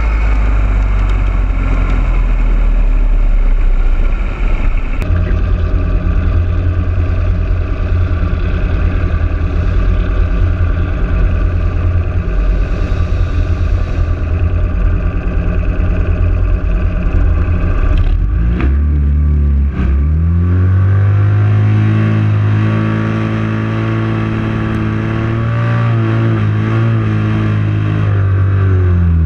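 Motorcycle engine running at speed for the first few seconds, then idling steadily. About 18 seconds in it revs up and holds high, steady revs through a burnout, the rear tyre spinning and smoking.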